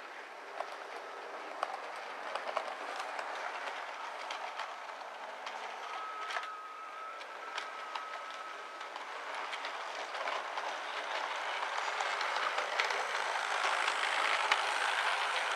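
Model railway train, a Class 90 locomotive with its coaches, running along the track: a steady whirring hiss with frequent sharp clicks, growing louder as it comes closer. A thin, high, steady squeal lasts about three seconds midway.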